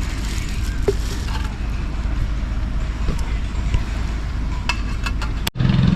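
Steady low outdoor rumble with scattered light clicks and knocks, cut off abruptly near the end.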